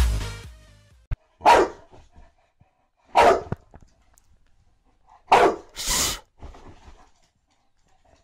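Electronic dance music fades out in the first half second, then a boxer dog gives four short barks spread over about five seconds, the last two close together: play barking at a feather toy.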